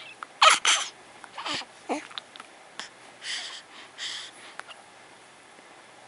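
Young baby making a short, sharp burst of sound about half a second in, then two brief falling coos and a few soft breaths.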